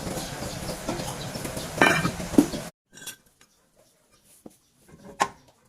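Metal clinks and knocks of hand tools on brake parts during a rotor disc replacement: two sharp knocks over a steady background noise that cuts off abruptly about halfway in, then scattered small clicks and one sharp clink near the end.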